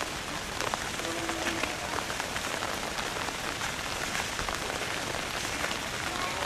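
Steady hiss of outdoor noise, dotted with fine pattering ticks, with a brief low steady hum about a second in.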